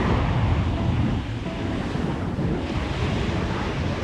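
Ocean surf breaking on the beach, with wind rumbling on the microphone.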